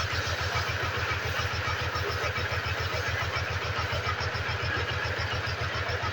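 Motorcycle engine idling steadily, its firing pulses even and unchanging.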